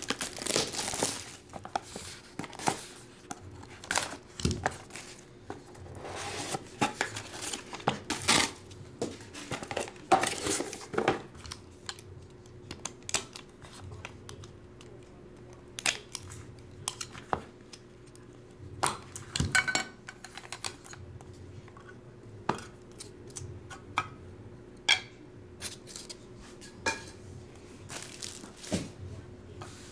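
Handling and opening a shrink-wrapped trading card box: plastic wrap tearing and crinkling, a box cutter slitting the packaging, and the box and card cases clicking and rustling in the hands. The sharp rustles and clicks come thick in the first dozen seconds and sparser after, over a faint steady hum.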